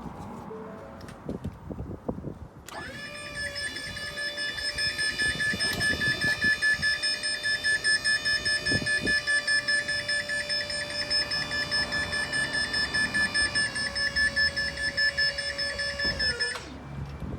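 Electric-hydraulic tipping pump of a Ford Transit tipper running to work the tipper body: a steady whine pulsing several times a second. It starts about three seconds in, dips in pitch about fourteen seconds in and again just before it cuts off.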